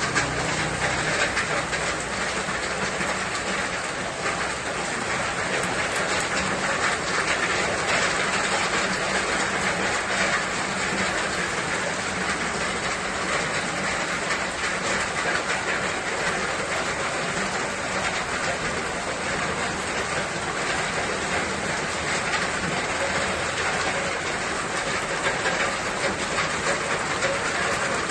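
Steady rain falling, an even hiss with dense pattering.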